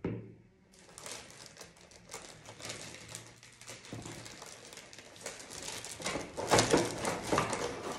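Packaging crinkling and rustling as it is handled, starting about a second in and getting louder near the end.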